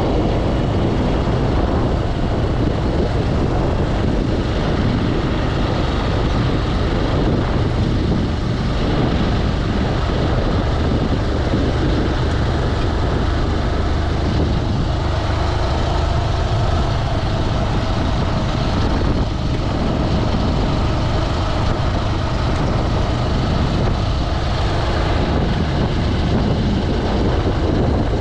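Steady rush of wind buffeting the microphone while moving at riding speed, over road noise from tyres rolling on asphalt.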